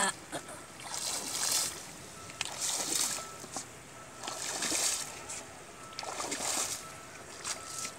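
Shallow pond water splashing and sloshing in repeated surges about every second and a half, as someone wades through it hauling a fishing net.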